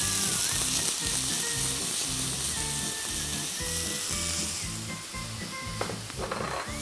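Chopped onion and garlic sizzling in a hot stainless steel pot as canned whole tomatoes are poured in, then stirred with a slotted metal spatula.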